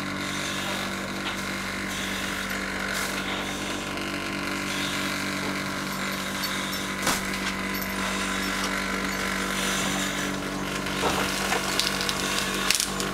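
Steady engine drone of a petrol-driven positive-pressure ventilation fan running at constant speed, with a few knocks and clatters near the end.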